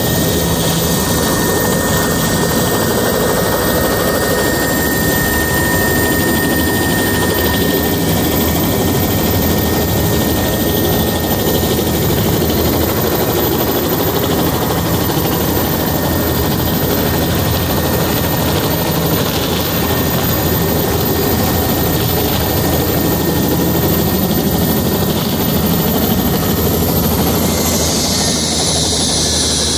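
Helicopter running on the ground: a loud, steady engine and rotor noise with a high whine. Near the end the whine drops in pitch as the engine starts to wind down.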